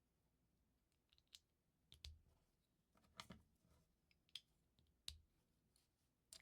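Faint plastic clicks and taps of LEGO bricks being handled and pressed together, about six in all, with a short rattle of pieces about three seconds in.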